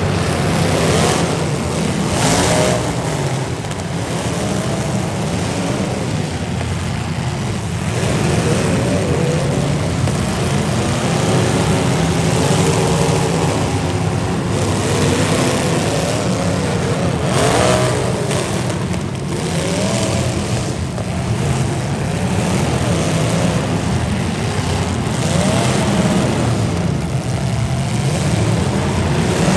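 Several demolition derby cars' engines running and revving together, their pitch rising and falling, with a few brief louder moments.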